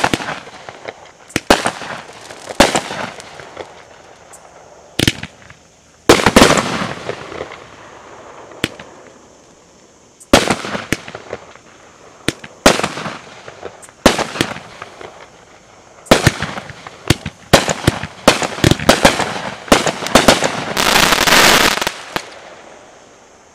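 Aerial firework shells fired from a mortar rack: a run of sharp launch thumps and bursts, coming closer together toward the end, with a dense stretch of crackling near the end.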